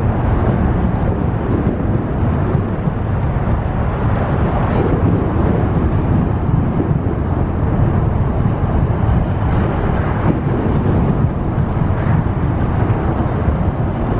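Mercury outboard motor on a bass boat running with a steady low rumble, the boat pulling on a rope tied to a snagged magnet-fishing line.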